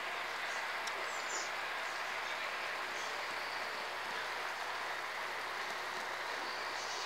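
Paella broth with clams boiling hard in a large, wide pan: a steady bubbling hiss.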